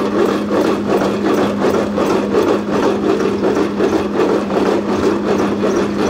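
Hesston 4590 small square baler running in the field, packing hay in a fast rhythmic rasping chatter over a steady drone from the tractor driving it.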